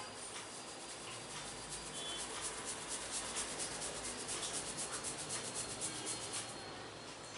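Hands rubbing briskly and rhythmically over skin and hair in a massage, quick brushing strokes several times a second that ease off near the end.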